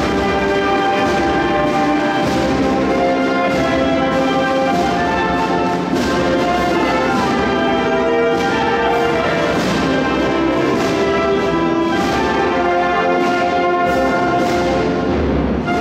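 Brass band playing a processional march, with held chords over a steady beat.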